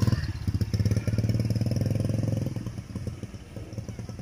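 Small motorbike engine running as the bike pulls away and rides off, its steady note fading after about two and a half seconds as it moves into the distance.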